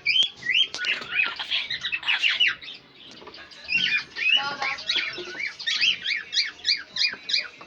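Small birds chirping continuously, a dense run of short, high chirps overlapping one another, several a second.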